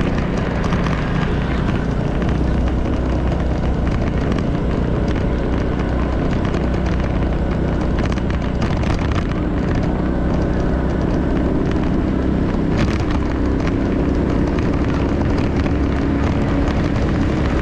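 Moving vehicle: an engine running under steady rushing road and wind noise, with the engine note growing plainer in the last few seconds.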